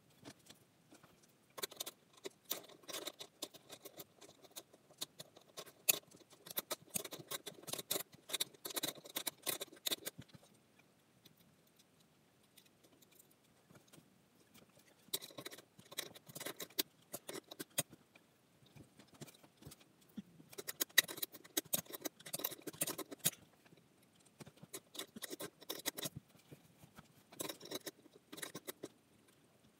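Fan parts and hardware being handled: irregular runs of small clicks, rattles and rustling, in four bursts separated by short pauses.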